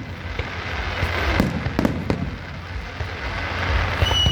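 Fireworks display going off: repeated sharp bangs and crackles over a continuous low rumble, with a brief high whistle near the end.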